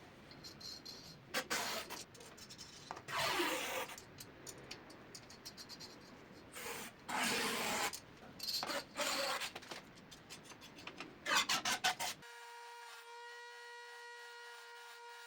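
A series of short scraping or rubbing strokes, each from a fraction of a second to about a second long. About twelve seconds in they give way abruptly to a steady hum made of several even tones.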